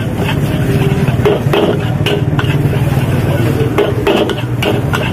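Metal spatula knocking and scraping against a wok in irregular strikes while nasi goreng is stir-fried, over a steady low rumble.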